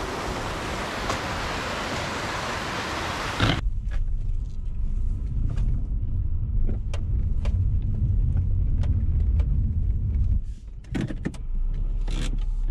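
A steady rushing noise that cuts off abruptly about three and a half seconds in. It gives way to a steady low rumble with scattered sharp crunches, from footsteps in snow on a steep climb.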